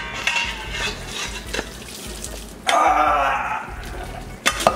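Hot pasta water and spaghetti poured from a stainless steel pot into a metal mesh colander in a sink: a steady splashing gush that grows louder about three seconds in and then eases. A couple of sharp knocks come near the end.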